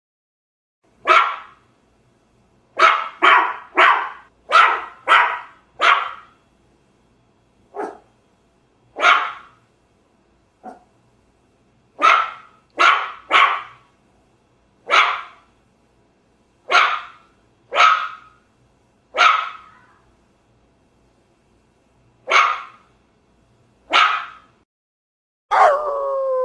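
A dog barking: about nineteen short, sharp barks, some single and some in quick runs of three to five, with pauses between them. Near the end a drawn-out howl begins, falling slowly in pitch.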